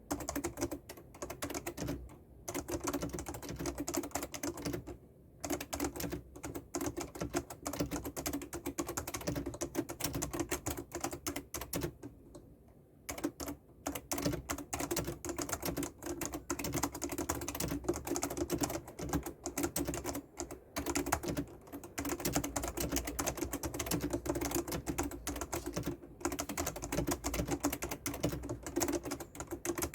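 Fast, continuous typing on a Fujitsu Peerless FKB4725 keyboard: its spring-over-rubber-dome keys, fitted with PBT keycaps, click in quick succession. The typing breaks off briefly a few times, longest about twelve seconds in.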